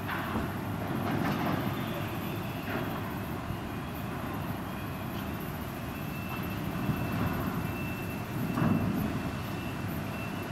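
Steady distant rumble of container-port machinery, with a few faint knocks and a thin high whine in the second half.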